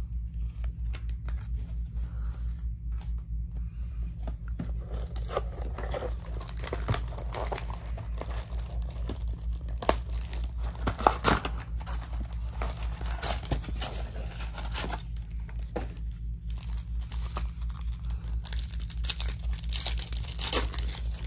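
Plastic shrink-wrap and foil trading-card packs being torn open and crinkled by hand, with a couple of sharp clicks of handling about ten seconds in.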